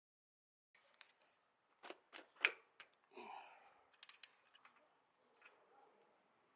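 Small parts being handled by a gloved hand on a motorcycle: a series of quiet, sharp clicks, loudest about two and a half seconds in and again as a quick pair just after four seconds, with a short rustle between them.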